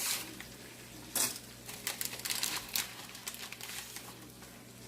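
Crinkling of plastic packaging with scattered sharp clicks and rustles while dry stick-like noodles are handled and put into a pot; the loudest click comes about a second in.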